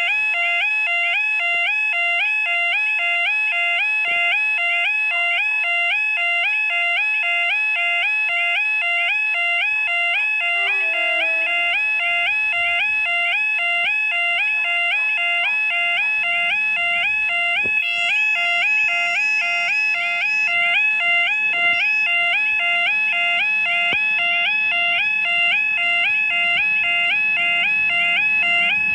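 UK level crossing warning alarm sounding continuously: a loud electronic yodel, a rapid, regular warbling tone repeating without a break, the signal that a train is approaching the crossing.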